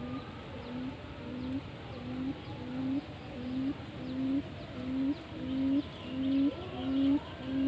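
Leto bird (field quail) calling: a long series of short, low hooting notes, about one and a half per second, growing steadily louder. Faint chirps of other birds sound behind it.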